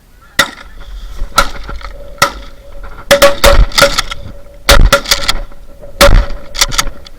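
A volley of shotgun shots from several hunters firing at geese, a dozen or so shots in about seven seconds, some in quick clusters of two or three.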